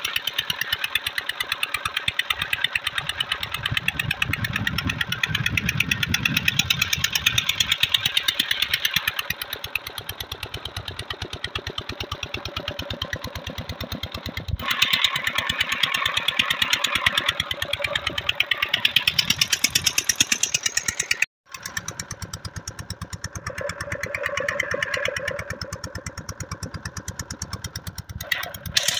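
Peter diesel engine running steadily under load, a rapid even beat of firing strokes, belt-driving a centrifugal water pump.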